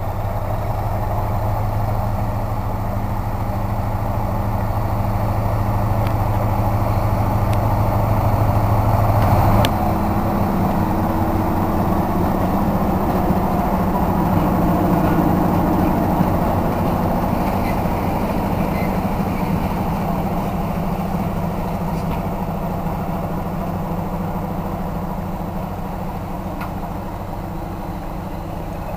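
SP42 diesel locomotive engine running as the train passes close by. Its hum grows louder, changes note abruptly about ten seconds in, then slowly fades as it moves away.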